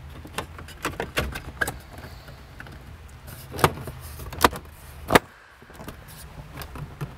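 Plastic dashboard trim of a 2013 Toyota RAV4 clicking and knocking as hands press and tap along it to test for the dash rattle, now partly damped by anti-rattle foam tape wedged in behind the trim. There are many light clicks, with three louder knocks a little past halfway, over a steady low hum.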